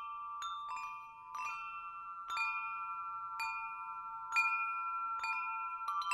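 Chimes ringing: irregular strikes about once a second, each ringing on and overlapping the next, with the loudest strike a little past the middle.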